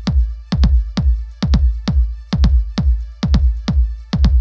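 Background electronic music with a steady, heavy kick-drum beat.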